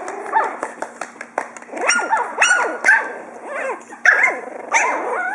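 Pug puppies play-barking and yipping at each other in a quick run of short, high calls, with scattered small clicks among them.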